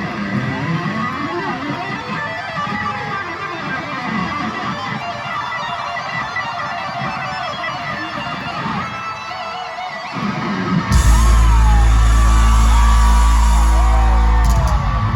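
Live electric guitar solo played loud through a concert PA, with string bends gliding up and down. About eleven seconds in, a very loud, heavy low chord comes in and is held for several seconds.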